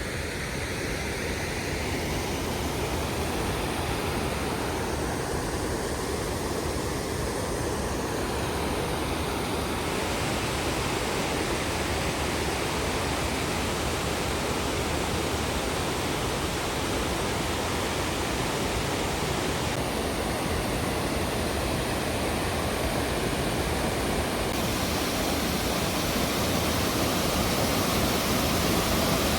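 Steady rush of water from a waterfall, getting slightly louder near the end.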